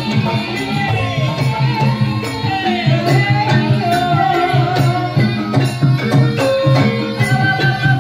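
Javanese gamelan music accompanying an ebeg horse dance: a singer's wavering, gliding melody over kendang drum strokes and repeating low pitched gamelan tones.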